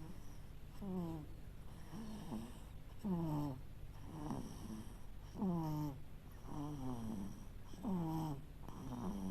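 A voice making short, soft sounds that each slide down in pitch, about eight in a row at roughly one-second intervals.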